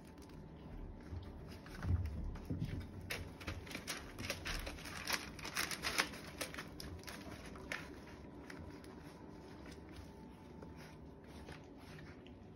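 Five-week-old puppies moving about and scrabbling in their pen: quick, irregular clicks and patter, busiest in the middle, with a low thump about two seconds in.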